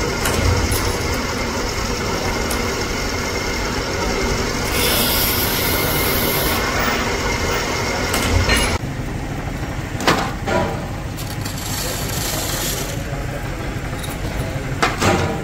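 Valve-grinding machines running steadily, with abrasive grinding wheels working on steel engine valves. A brighter hissing spell of grinding comes about five seconds in, and sharp metal clinks come near eight and a half, ten and fifteen seconds as valves are handled.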